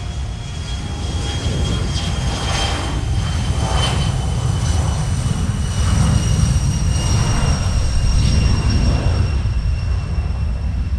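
Regional airliner's engines passing close by: a heavy low rumble under several high whining tones that slowly fall in pitch. It grows louder, peaks after about six seconds, then eases slightly.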